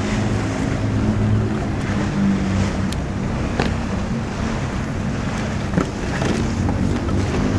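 A boat engine's low, steady drone, with wind on the microphone and a few short clicks of fishing tackle being handled.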